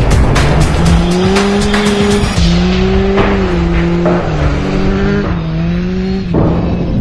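Formula race car engine running hard, its pitch holding and then stepping up and down, mixed with background music.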